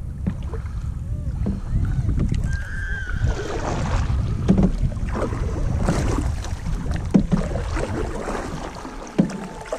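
Canoe on the water, with scattered hollow knocks of paddles and gear against the hull, over a low wind rumble on the microphone.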